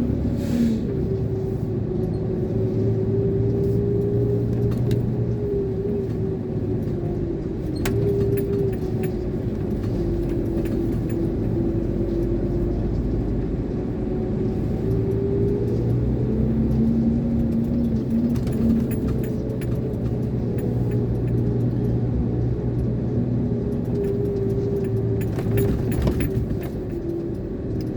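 Iveco 32-ton concrete mixer lorry's diesel engine running, its note stepping up and down in pitch several times.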